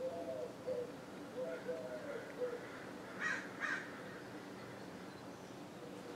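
Crow cawing: two harsh caws about half a second apart a little over three seconds in, after a run of short, lower calls.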